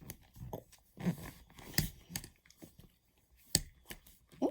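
Jello-like slime being squeezed and handled in the hands, making a series of small, irregular wet clicks and squelches.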